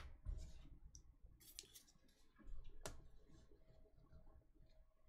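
Faint handling noise of trading cards: light rustles and small clicks, with one sharper click about three seconds in.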